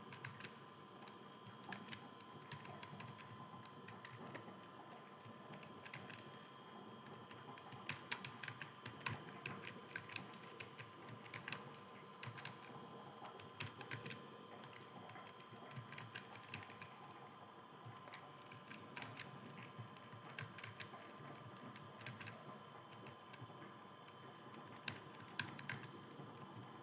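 Computer keyboard keys clicking in fast, uneven bursts of typing, with a faint steady electrical hum underneath.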